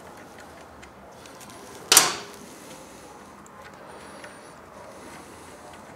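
One sharp metal clink about two seconds in, from a wrench knocking against the muffler mounting bolt and bracket behind the foot peg; the rest is faint background.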